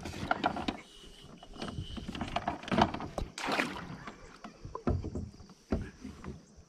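Irregular knocks and clunks of gear handled on a plastic fishing kayak, with water splashing as a landing net holding a bass is put over the side.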